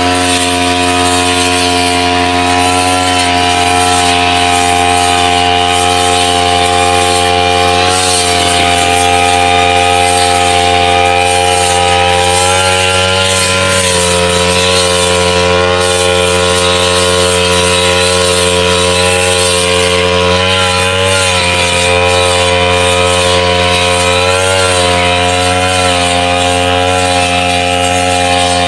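Backpack brush cutter engine running steadily at high speed while its blade cuts through thick grass, the pitch wavering briefly a few times as the blade bites into clumps.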